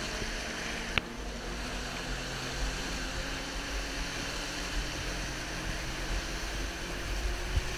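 Steady rushing of creek water under a low rumble, with one sharp click about a second in.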